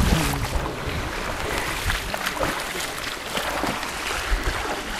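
River water rushing fast along a street: a steady rush of water noise, with a few low bumps of wind or handling on the microphone.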